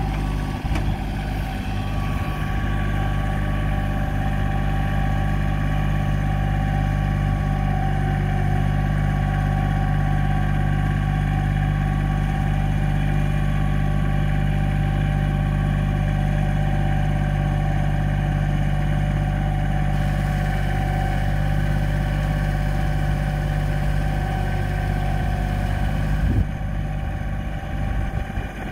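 Kubota L3010 compact tractor's diesel engine running steadily under load as it drags a box blade across the field. Its note changes briefly near the end.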